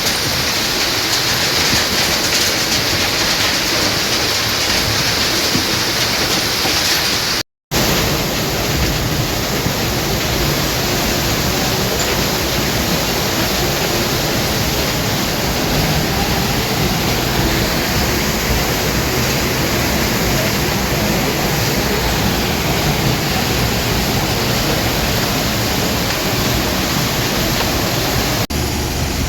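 Sand recycling plant running: a loud, steady rushing noise of machinery and flowing material with a low rumble underneath. It cuts out completely for a moment about a quarter of the way through and comes back with the low rumble stronger.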